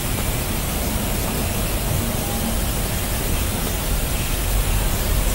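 Steady, even hiss with a low rumble underneath.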